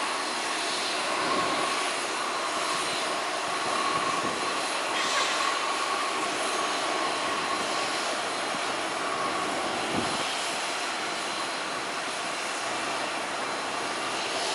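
A 1953 Convair CV-340's two Pratt & Whitney R-2800 radial piston engines running at low power, propellers turning, as the airliner rolls out along the runway after landing: a steady drone with a thin steady whine.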